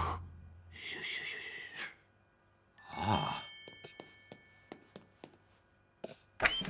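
Cartoon sound effects: a bright chime about three seconds in with tones that ring on, followed by a quick run of light ticks, about five a second.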